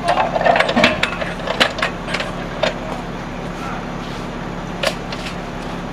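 Metal clanks and knocks from an M777 howitzer's breech and loading tray as a shell is loaded and rammed: a cluster of sharp knocks in the first three seconds and one more near five seconds, over a steady low hum.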